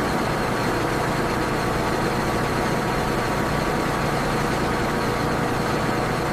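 Steady machinery noise: a constant low hum under an even mechanical rush that holds the same level throughout.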